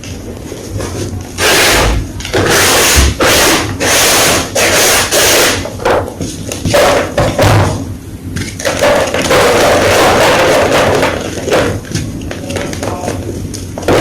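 Gym chalk blocks being crushed, crunching in a quick run of short loud bursts, then a longer crunch of about two seconds.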